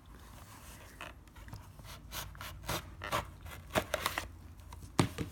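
Packaging of a sealed box being opened and handled by hand: scattered soft scrapes, crinkles and clicks, with one sharper click near the end.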